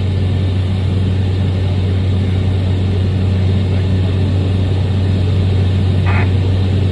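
Cessna 208 Caravan's PT6A turboprop engine and propeller, heard inside the cockpit in cruise flight: a loud, steady drone with no change in pitch. A short higher blip comes about six seconds in.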